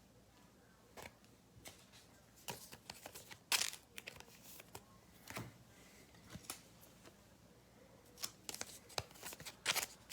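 Faint, scattered rustling and light clicks of trading cards and foil card-pack wrappers being handled, with a busier cluster near the end.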